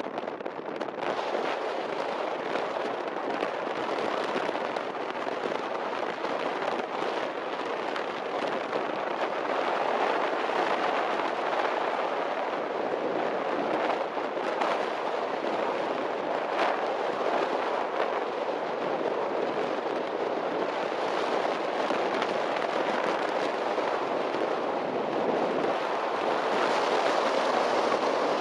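Off-road race vehicle running at speed over dirt, a steady rush of engine, wind and tyre noise with scattered sharp cracks and clatters.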